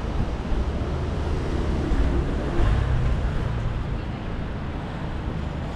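City street traffic noise, a steady low rumble with a vehicle passing near the middle.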